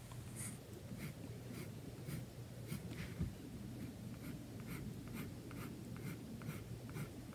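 Pencil scratching on sketchbook paper in short, quick strokes, about two a second, as rows of stripes are drawn.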